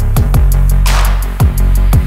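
Background electronic music with a heavy beat: deep kick drums that slide down in pitch over a sustained bass, quick regular hi-hats, and a snare hit about a second in.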